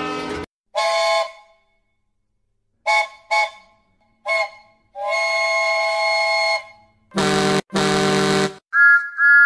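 A string of separate train whistle and horn blasts with silences between: one blast near the start, two quick toots about three seconds in, another short toot, then a long held whistle of about a second and a half. After it come two deeper horn blasts and, near the end, two short higher-pitched toots.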